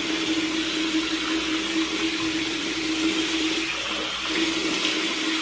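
Water running steadily from a bathroom tap into the sink while a dried clay face mask is rinsed off, with a steady hum underneath.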